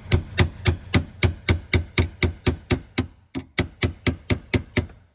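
Rapid hammer blows on a flathead screwdriver set against a fuel pump's retaining nut, about four to five strikes a second, knocking the nut round to loosen it.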